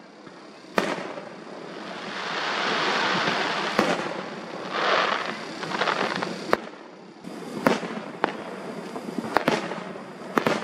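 Aerial firework shells bursting overhead: sharp bangs every one to three seconds, with a long swelling hiss of burning stars between them.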